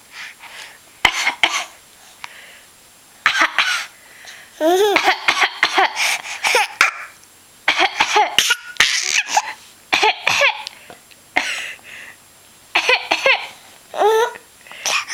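A young child's high-pitched coughs, coming in several clusters of short bursts, some of them run together with voiced, laugh-like sounds.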